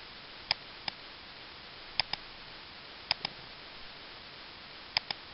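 Computer mouse clicking: four pairs of sharp clicks spread a second or two apart, over a steady faint hiss.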